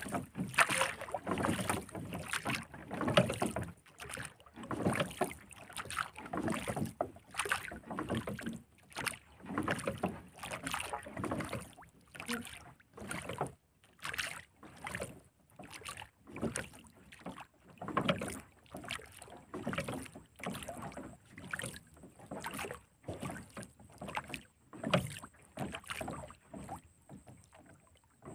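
Small waves lapping and slapping against the hull of a wooden boat in short, irregular splashes, about one or two a second.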